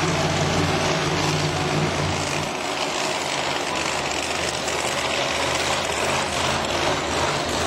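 Monster truck engines running at low speed with a steady deep note; the strongest low tone drops away about two and a half seconds in while engine noise carries on.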